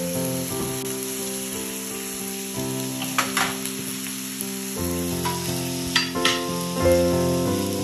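Salmon and white fish fillets sizzling on a raclette grill's hot stone and grill plates, a steady hiss, with background music of held chords that change about once a second. A few sharp clicks about three and six seconds in.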